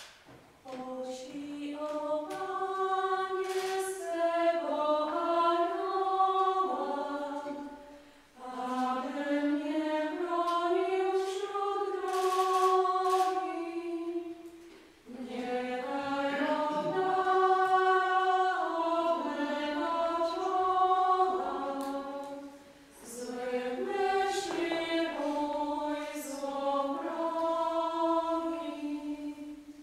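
Unaccompanied singing of a slow hymn in four phrases of about seven seconds each, with a short break for breath between them.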